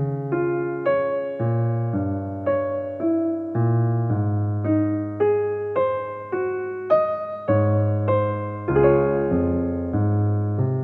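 Soft background music: a slow, gentle electric piano playing one sustained note after another, each struck and left to fade.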